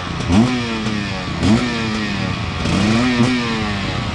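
Dirt bike engine revving in short throttle blips: the pitch jumps up and sags back three times, the last rise held a little longer.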